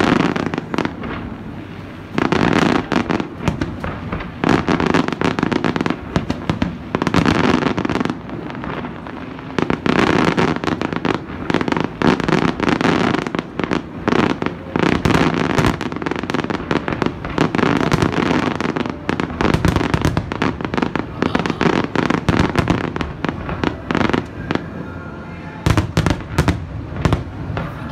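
Aerial fireworks display: a dense, continuous run of bangs and crackling bursts with no let-up.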